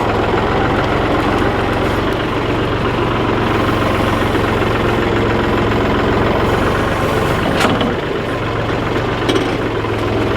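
Tractor engine running steadily, with one sharp click about three-quarters of the way through.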